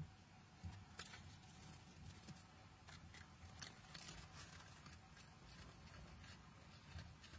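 Faint, irregular crunching of a red fox biting and chewing a pretzel stick.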